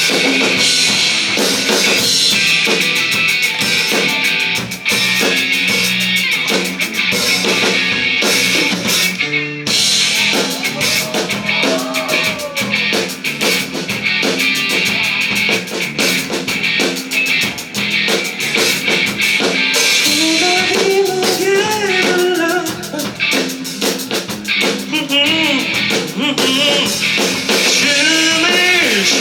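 Live rock band playing: a drum kit, electric guitars and bass, with a lead vocal singing over them in stretches. There is a brief break in the playing about nine and a half seconds in.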